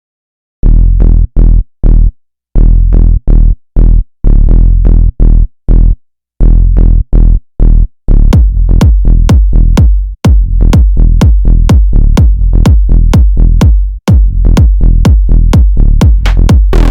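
Electronic dance music: a heavy bass line in short, choppy stabs separated by brief gaps, joined about eight seconds in by a steady, fast, high ticking beat, with a rising noisy swell near the end.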